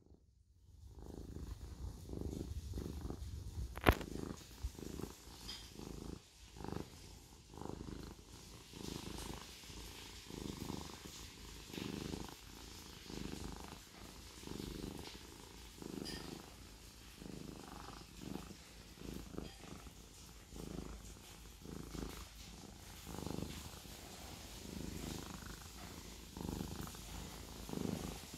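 Siamese cat purring steadily, the purr swelling and easing with each breath about once a second. A single sharp click sounds about four seconds in.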